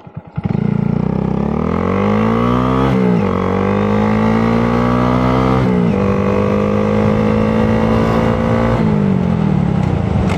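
2022 Honda Grom's single-cylinder engine, loud, pulling under throttle from about half a second in. Its pitch climbs and drops sharply twice at upshifts, holds steady, then falls away near the end as the throttle closes.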